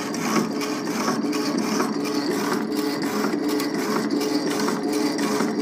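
Old Craftsman reciprocating power hacksaw running under its Emerson electric motor, the blade stroking back and forth through steel stock with a steady hum and a regular repeating rhythm. The blade needs replacing.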